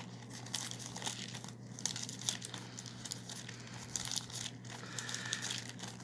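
Thin Bible pages being leafed through, rustling and crinkling in quick irregular flicks, over a steady low hum.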